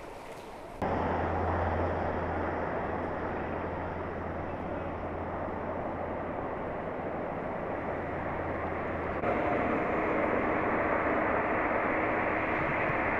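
Steady rush of water falling from an artificial waterfall into a pool, with a low steady hum beneath; it starts abruptly about a second in and shifts in tone about nine seconds in.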